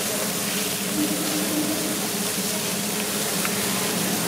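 Beef burger patties sizzling on a flat-top griddle: a steady hiss.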